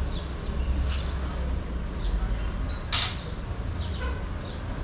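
Steady low background rumble with a few faint high chirps, and a short sharp hiss about three seconds in.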